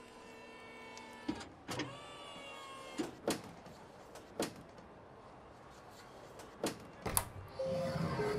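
Sound-design effects: a sustained electronic whine that slowly falls in pitch, cut through by several sharp swishes and hits, then a hissing swell near the end.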